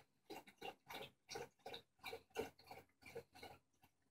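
Puppy sniffing and snuffling at a blanket with its nose down: a quick run of short, quiet sniffs, about two to three a second, that stops near the end.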